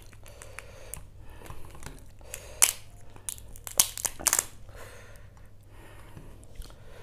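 Shell of a large spicy fried prawn being cracked and pulled apart by hand: a crinkly crackling, with a few sharp snaps in the middle.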